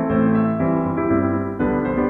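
Background music led by piano, with sustained chords changing every half second or so.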